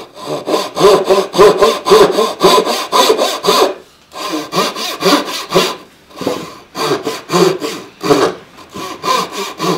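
A backsaw cutting down into a hardwood board with quick, even push-and-pull strokes, about four to five a second, pausing briefly twice. These are the extra kerf cuts that waste out the socket between the pins of a hand-cut dovetail joint.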